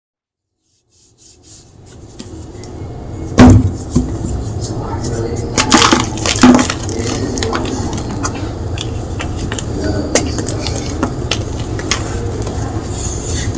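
Blocks of gym chalk crunching and cracking under a steady crumbling hiss. Sharp cracks come about three and a half seconds in, again around six seconds, and more lightly near ten seconds; the sound fades in after a brief silence at the start.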